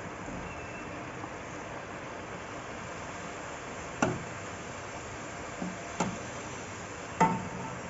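Hot oil sizzling steadily around stuffed puffs deep-frying in a steel kadai. In the second half a perforated metal skimmer clinks sharply against the pan three times, the last with a brief ring.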